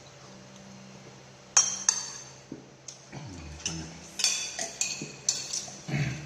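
Tableware clinking during a meal: a run of sharp, ringing chinks of dishes and utensils, starting about a second and a half in and coming every half second or so after that.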